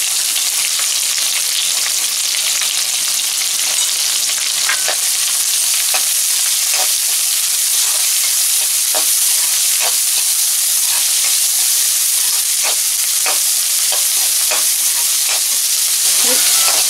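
Chopped onions frying in hot oil in a metal kadai, with a steady loud sizzle. A spatula scrapes and knocks irregularly against the pan as the onions are stirred, the first stage of frying them until golden.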